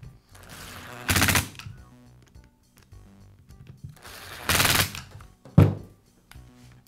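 Screwdriver driving screws into a cordless drill's plastic housing, heard as short rattling bursts, the loudest about a second in and again at about four and a half seconds. Near the end the drill is set down on the workbench with one sharp knock.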